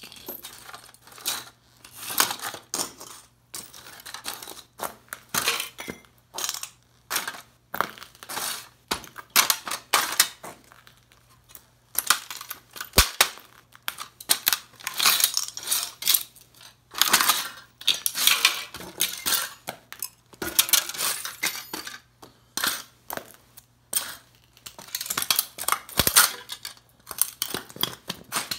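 Heavy leather boots stamping on and grinding into the broken parts of an old tube radio on a concrete floor: irregular crunching and cracking of wood, board and cardboard, mixed with metallic clinks and clatter from speaker frames and other metal parts.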